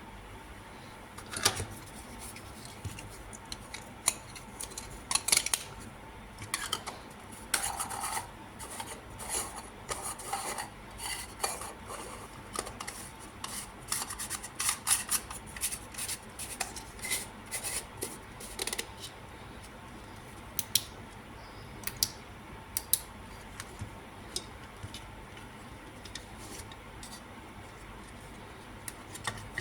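Irregular clicking and scraping of small tools and hard parts being handled during a lamp repair, busiest through the first two thirds and sparse near the end.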